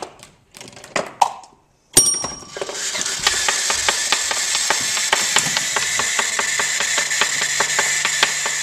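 Rube Goldberg machine running: after a few faint clicks and a brief silence, a loud, dense clatter of rapid mechanical clicking and ratcheting over a steady whir starts suddenly about two seconds in and carries on.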